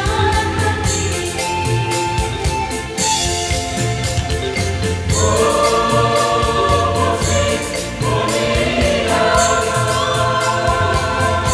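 Mixed choir singing long held chords over a steady rhythmic instrumental backing, moving to new chords about five and eight seconds in.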